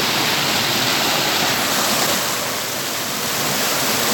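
Waterfall pouring, a loud and steady rush of water that eases a little midway through.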